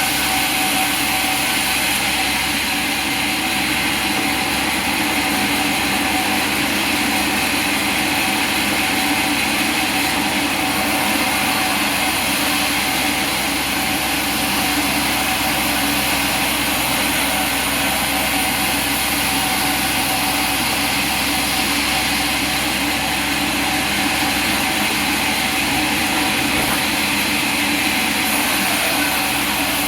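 Sawmill machinery running, a steady, unchanging mechanical hum and hiss with no distinct cuts or strokes.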